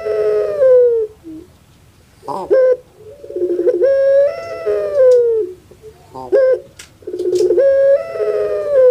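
Female ringneck (Barbary) dove of the Indonesian puter pelung type cooing, the rhythmic 'crying' coo prized by keepers. Each coo opens with a short rising-and-falling note, runs into a quick rolling stutter, then holds a long note that drops away at the end; the coo repeats about every three and a half seconds.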